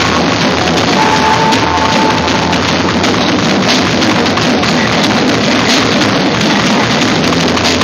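Jazz-grunge band playing loud, with a full drum kit and crashing cymbals.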